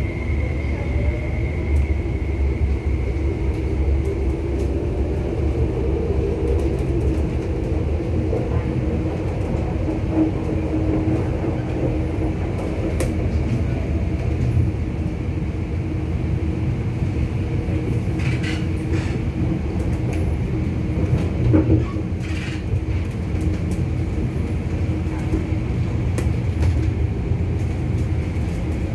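Interior of an MTR SP1900 electric train running on the line: a steady rumble of wheels on rail with a steady motor hum, and a faint rising whine in the first couple of seconds. A few short sharp sounds come in over the middle stretch.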